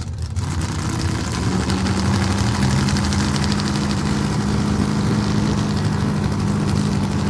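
An engine running steadily at idle, cutting in abruptly.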